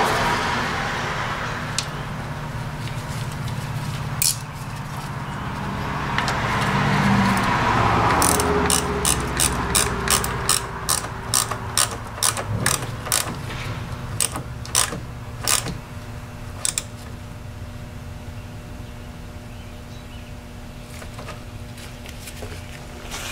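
Ratchet wrench clicking in short strokes, about two clicks a second, as the nut on the negative battery terminal clamp is snugged down. The clicking is preceded by a broad rushing noise.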